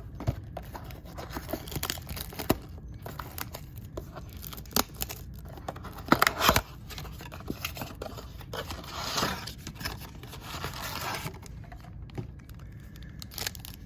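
Packaging of a trading-card blaster box being torn open and crinkled, with handling clicks throughout and the loudest tear about six seconds in.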